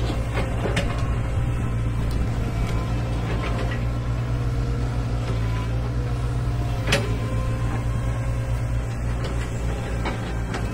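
Excavator diesel engine running steadily, with scattered clanks and knocks. The loudest knock comes about seven seconds in.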